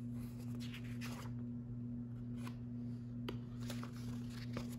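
Soft paper rustling and a few light taps as a picture book's page is turned by hand, over a steady low hum.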